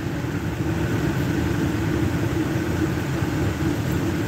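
Car running, heard from inside the cabin: a steady low engine and road rumble with a steady hum over it.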